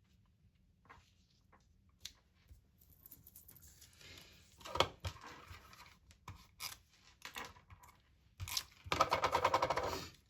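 Paper being handled and cut on a paper trimmer: rustling and scraping of the sheet, a few clicks, then about a second of rapid rasping as the blade is drawn through the paper near the end.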